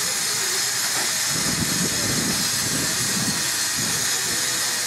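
Steady loud hiss of steam escaping from a standing LMS Stanier Class 5 4-6-0 (Black Five) steam locomotive, with a lower, uneven rumble underneath for a couple of seconds in the middle.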